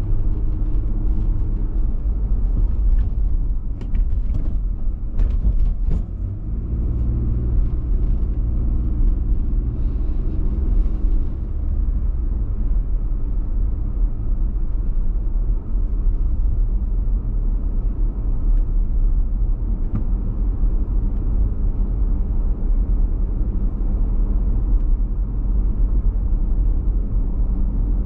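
Car driving slowly, heard from inside the cabin: a steady low rumble of engine and tyres on the road, with a few faint clicks a few seconds in.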